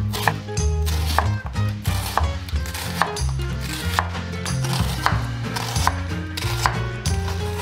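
Chef's knife slicing through an onion and tapping the wooden cutting board, about one cut a second. Background music with a steady bass plays under the cuts.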